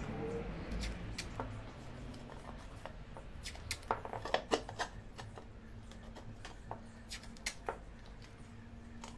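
Cut ceramic tile pieces and a tape roll handled on a table while the pieces are taped together into a box: light knocks and sharp clicks, a cluster about four seconds in and a few more near seven seconds.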